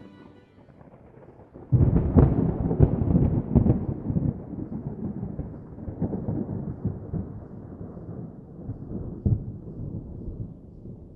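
A loud low rumble breaks in suddenly about two seconds in, crackling at first, then dies away slowly over several seconds.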